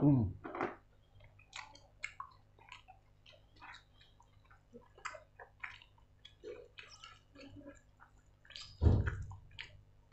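Close-miked chewing of a mouthful of food: many small wet smacks and clicks of lips and mouth. The eater gives a short low hum at the start and another about nine seconds in. Through the middle, a roasted chicken is torn apart by hand.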